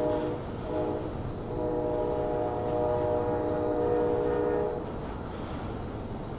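Locomotive horn sounding a chord of several notes. A blast cuts off just after the start, then comes a short toot, then a long blast of about three seconds that stops near the end, all over a low rumble.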